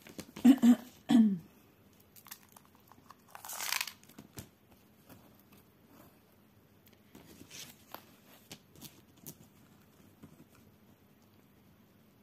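Stiff 14-count cross-stitch canvas rustling and crinkling as it is handled and smoothed flat. There are loud handling noises in the first second or so and a longer crinkle a few seconds in, then a few soft rustles and taps.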